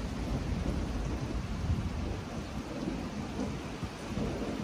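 Steady rain falling on an open-air pool and its paved deck, an even hiss, with a low, unsettled rumble underneath.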